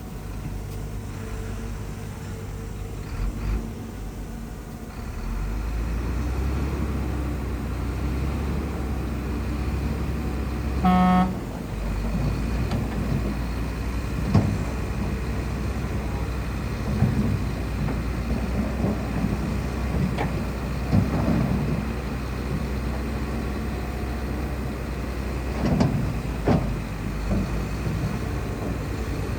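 Shantui bulldozer's diesel engine running steadily, growing heavier about five seconds in. A vehicle horn toots once briefly near the middle, and a few sharp knocks follow.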